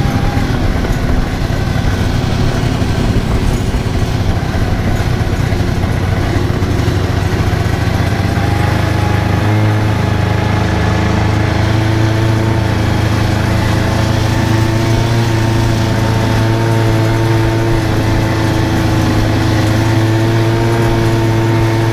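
Small engine running steadily, its note settling to an even pitch about nine or ten seconds in.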